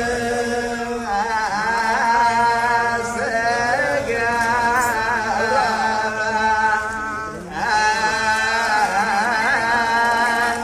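A group of voices chanting a hymn together, in the style of Orthodox Tewahedo church chant, with a brief break about three-quarters of the way through.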